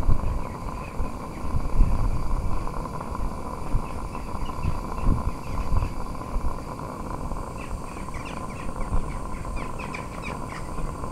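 Small live-steam Shay locomotive running along garden-railway track, with a rapid patter of exhaust beats and the clatter of its geared drive and wheels.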